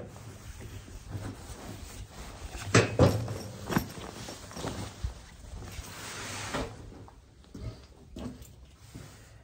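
Canvas bedroll cover and cotton sheet being handled and pulled into place: fabric rustling and sliding, with a few knocks, the loudest about three seconds in, and a longer swish around six seconds in.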